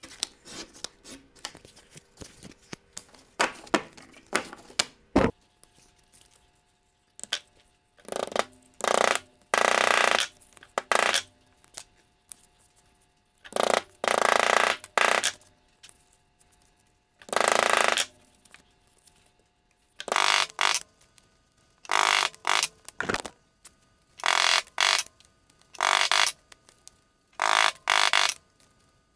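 A hard hand tool rubbed firmly along the fold of a folded piece of veg-tan leather on a board: a series of harsh scraping strokes, each half a second to a second and a half long, with short pauses between. Lighter handling clicks and one sharp knock come first.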